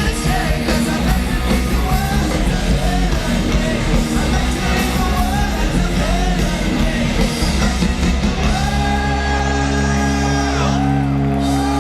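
Live punk rock band playing loud, with shouted lead vocals over distorted electric guitars, bass and drums. About eight and a half seconds in, the band moves to a long held chord with the singing carried over it.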